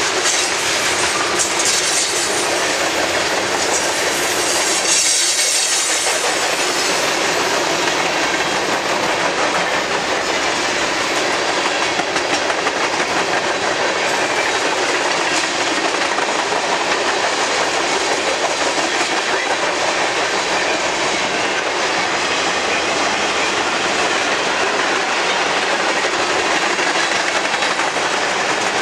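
Freight train cars, mostly tank cars with some boxcars, rolling steadily past at close range: a continuous rumble and clatter of steel wheels on the rails.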